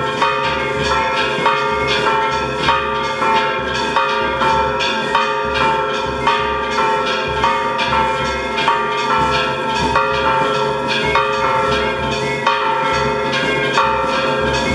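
Church bells ringing in a continuous fast peal, struck over and over in a repeating pattern of several pitches.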